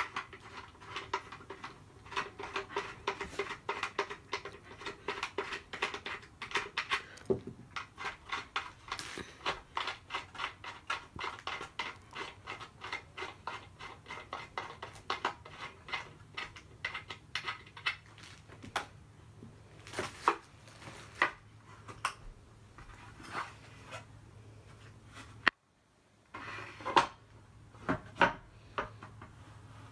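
Small metal parts of a laminate floor cutter clicking and clinking as bolts are turned with an Allen key: a quick run of ticks at first, then sparser clicks, with a few louder knocks near the end.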